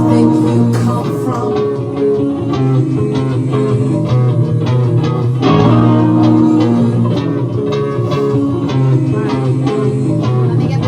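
Instrumental music: plucked guitar over a steady bass line, playing a looped phrase that repeats about every six seconds.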